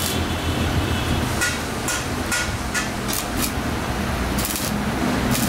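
Stick-welding arc crackling and sizzling as a rod electrode welds a joint in square steel tubing, with irregular sharp pops. A low steady hum runs underneath.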